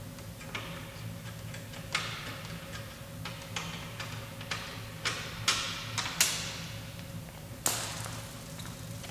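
Irregular clicks and taps of hand tools and plastic fasteners as screws are taken out of a car's plastic front bumper cover, with a louder knock near the end, over a steady low hum.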